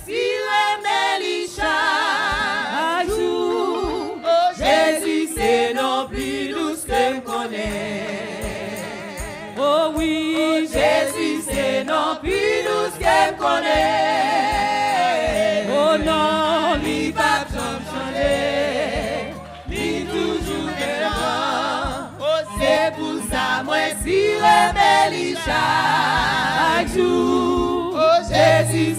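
Church worship singers singing a Haitian gospel song in chorus, with long wavering held notes over a steady beat.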